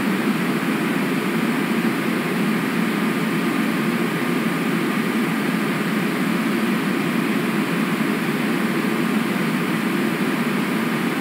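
Steady rushing of river water picked up by an outdoor webcam microphone, even and unbroken, with a faint steady hum underneath.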